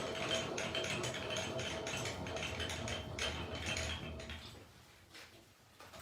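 A tap being turned into a hole in 1/4-inch hot-rolled steel plate, with ratcheting clicks and metallic mechanical noise. It dies away about four and a half seconds in.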